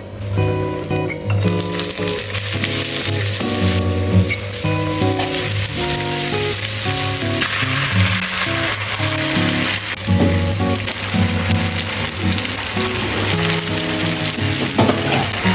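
Sliced tomatoes, chilies and shallots frying in oil in a non-stick pan, with sardines in chili sauce added and stirred with a spatula; the sizzling starts about a second in and grows louder about halfway through. Background music plays throughout.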